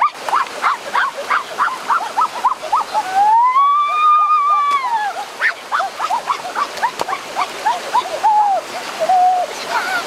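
Rapid high-pitched yelping cries, several a second, with one long whine rising and falling about three seconds in, over the rush of a shallow stream.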